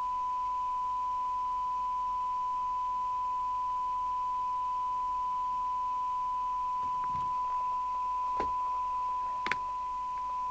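Steady single-pitch test tone from the signal generator, heard through the CB radio's loudspeaker while the receiver is on test. Two light clicks come near the end.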